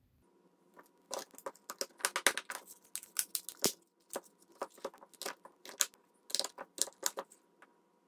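Hard plastic clicks and taps from a TI-89 Titanium graphing calculator's case being handled and its halves pressed and snapped back together, in quick irregular clusters.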